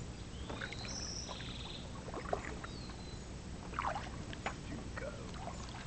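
Kayak paddle dipping and dripping as the boat glides along a calm river, with scattered small splashes. A few short high chirps sound in the first two seconds, and a falling whistle comes after about three seconds.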